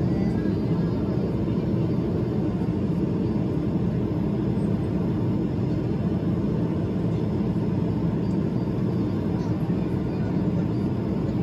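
Steady cabin noise of a jet airliner in flight, heard from a window seat beside the turbofan engine: an even, unbroken rumble of engine and airflow, heaviest in the low range.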